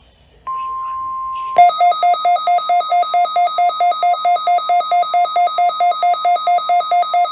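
NOAA Weather Radio warning alarm tone, a steady high tone starting about half a second in. About a second later a weather radio receiver's built-in alarm, set off by that tone, starts a loud harsh beeping about four times a second over it, marking the start of the weekly alarm test.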